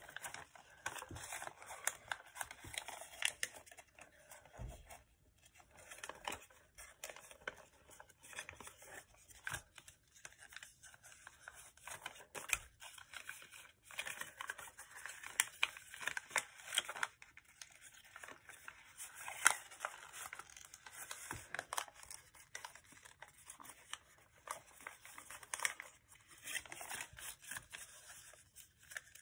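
A sheet of paper being worked by hand while folding an origami model: irregular crisp rustling and crackling as the paper is half unfolded, its creases reversed and the folds pressed flat.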